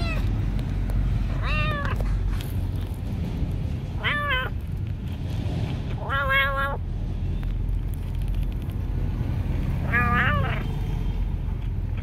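A kitten meowing four times, short meows a couple of seconds apart, over a steady low rumble.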